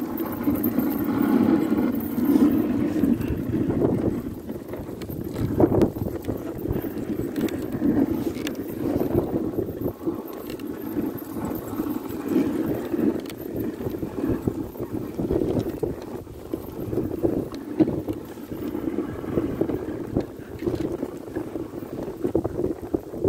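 Dog sled running over snow: a steady rushing scrape of the runners that swells and fades, with a few sharp knocks and wind on the microphone.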